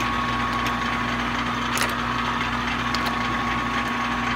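Rebuilt 14/40 engine lathe running under power with its carriage feed engaged: a steady gear-train hum with a constant high whine and a few light ticks.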